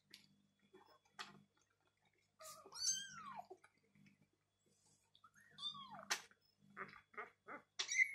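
Kittens mewing twice, each call falling in pitch, among soft quick clicks of kittens lapping milk from a plate.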